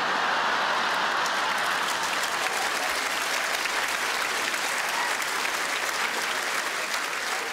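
A large theatre audience clapping after a punchline, a dense steady applause that eases off slightly near the end.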